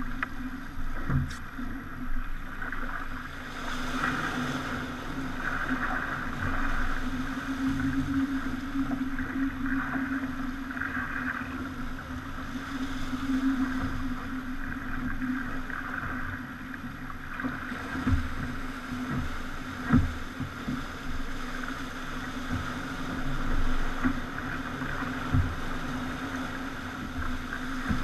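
Pogo 30 yacht under way at sea: a steady low hum over a constant rush of water, with scattered knocks and thumps, the loudest about twenty seconds in.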